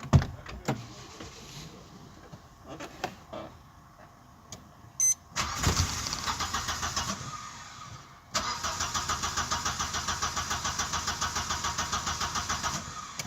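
A few clicks, then the 1992 Audi 80's engine cranking on the starter in two goes, a short one about five seconds in and a longer one from about eight seconds. It turns over with an even rhythmic pulse but never fires: a crank-no-start that the mechanic puts down to a failed fuel pump.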